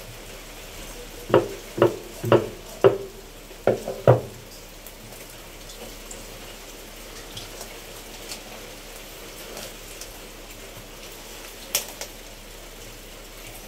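Heavy meat cleaver chopping a whole chicken against a wooden chopping board: six hard chops in about three seconds, starting about a second in, then one more sharp knock near the end, over a faint steady hiss.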